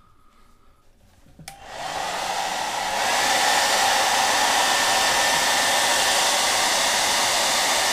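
Small handheld hair dryer switched on with a click about one and a half seconds in, then blowing steadily with an even rush of air. It grows louder about three seconds in.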